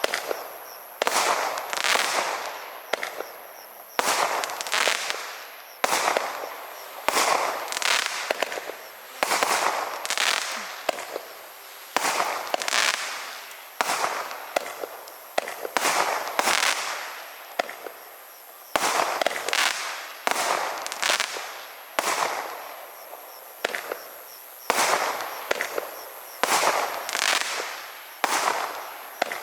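A 32-shot consumer fireworks barrage cake firing: sharp reports about once a second, each followed by a fading crackle as the gold crackling chrysanthemum and brocade crown bursts burn out.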